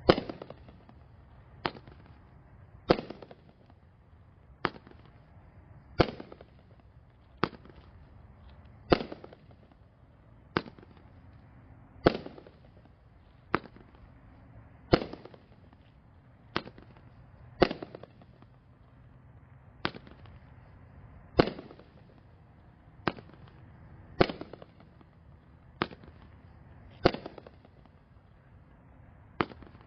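Firehawk Homefront 500-gram, 20-shot firework cake firing shot after shot: a sharp bang roughly every second and a half, each with a short fading tail.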